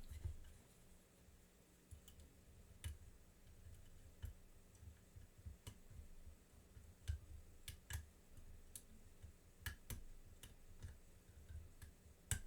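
Faint, irregular metallic clicks of a lock pick and tension wrench working the pin stack inside a padlock's keyway, a click every second or so.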